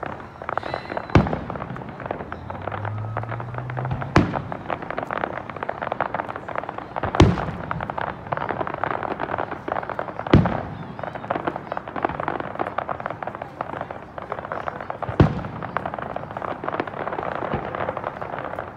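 Fireworks display: aerial shells bursting with five loud booms, roughly every three seconds, over a dense continuous crackling from glittering crackle shells.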